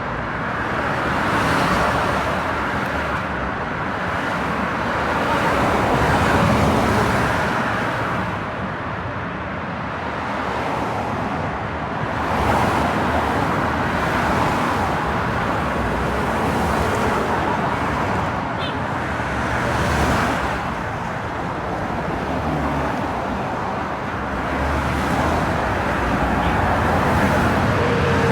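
Busy road traffic: a steady wash of tyre and engine noise, with cars passing one after another so that it swells and fades every few seconds.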